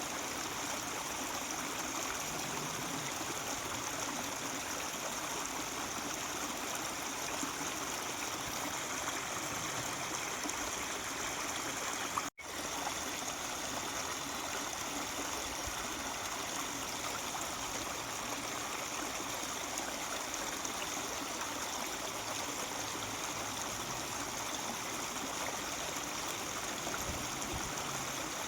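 Mountain stream running steadily over rocks, an even rushing and trickling of water. About twelve seconds in the sound cuts out for an instant and comes straight back.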